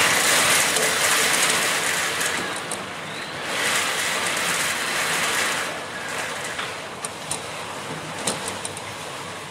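Typhoon wind and heavy surf surging against a seawall: a loud rushing noise that swells twice, then eases, with a few sharp ticks near the end.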